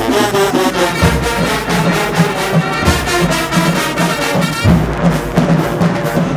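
Marching band playing: a full brass section, with trombones and trumpets, sounding sustained chords over a steady drum beat.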